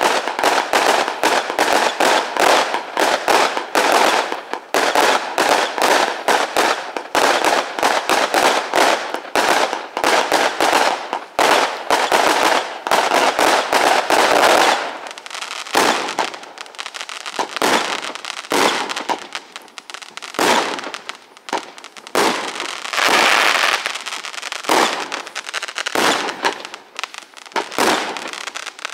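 Aerial fireworks display: a dense run of rapid bangs for the first half, then fewer, more widely spaced bursts from about halfway on.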